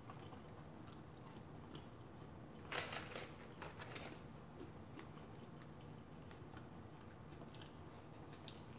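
Faint mouth sounds of a person chewing food, with a short burst of crackly clicks about three seconds in.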